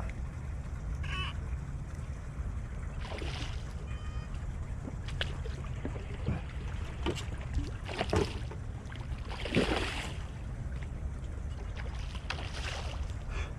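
Steady low rumble of wind on the microphone aboard a fishing kayak, with scattered knocks and splashy strokes every second or two, the loudest near the end.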